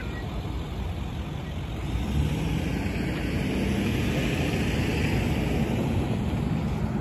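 Road traffic noise that swells about two seconds in as a vehicle goes by, with a hiss of tyres and a low hum. A railroad crossing's warning bell stops right at the start as the gates go up.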